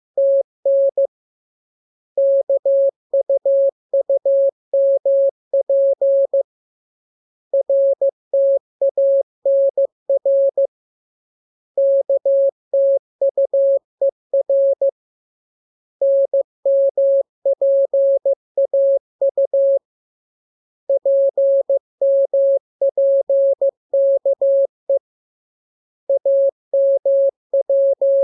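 Morse code sent as a single-pitched beeping tone: quick dots and dashes keyed in groups of three to four seconds, with a pause of about a second between groups. The practice text is made up of the letters K, M, U, R, E, S, N, A, P and T.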